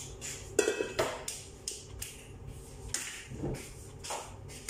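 Kitchen handling noises: a few sharp knocks and clicks, the two loudest close together about a second in, then softer taps and a short thud-like knock scattered through the rest, as someone moves about and handles things.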